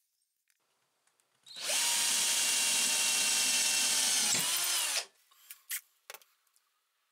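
Electric drill boring through a steel tube with a file-sharpened twist bit, its motor whining steadily for about three seconds. Near the end the whine winds down and stops, and a few light clicks follow.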